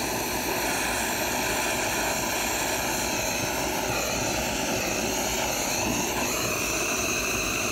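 Dental soldering torch flame hissing steadily while heating the joint of a gold bridge, with a slight shift in tone about four seconds in and again around six seconds.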